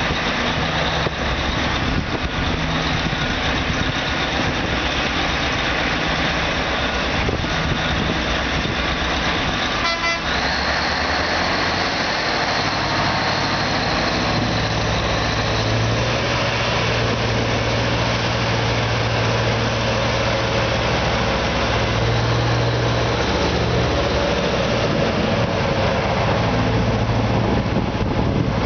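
Large mining haul truck's diesel engine running loudly, with a horn sounding about ten seconds in. From about twelve seconds the engine settles into a strong, steady low note as the truck pulls away.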